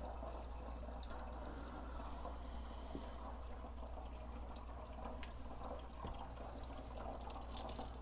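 Water trickling and running through the hoses and tank of a compost-heated water system, over a steady low hum, with a few faint clicks near the end.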